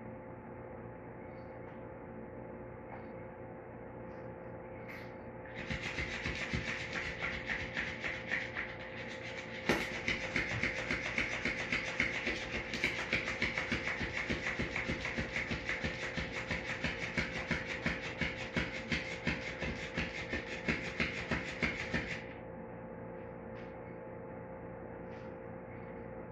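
Electric flopping fish cat toy starting up about six seconds in, its tail flapping in a fast, steady rhythm against the tile floor. It stops suddenly about twenty-two seconds in. A single sharp knock sounds a few seconds after it starts.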